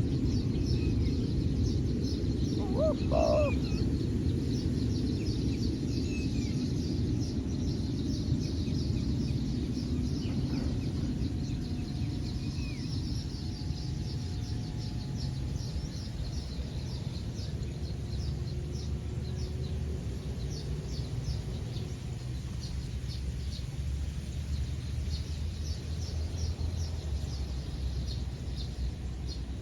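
Outdoor ambience: a steady low rumble with a fast high ticking throughout, and a few short bird calls in the first several seconds.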